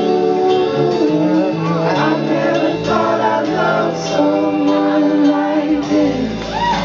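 Live acoustic music: men's voices singing long held notes over an acoustic guitar, the phrase drawing to a close about six seconds in.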